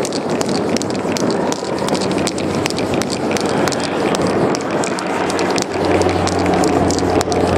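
Aerosol spray paint can hissing as paint is sprayed through a stencil, over steady outdoor background noise. A low steady hum joins about six seconds in.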